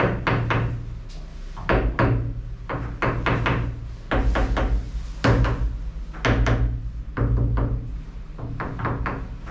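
Hammer tapping on the old babbitt bearing block of a boat's propeller shaft to knock it loose: sharp knocks in short, uneven runs about once a second.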